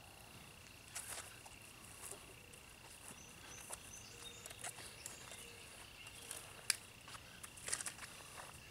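A steady, high, thin insect trill, with scattered rustles and clicks of footsteps on grass and handling of fishing gear, and one sharper click about two-thirds of the way through.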